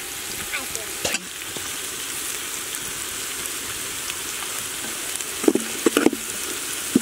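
Sliced onions and chilli powder sizzling steadily in hot oil in a large aluminium pot. Near the end, a metal ladle stirs them and knocks a few times against the pot.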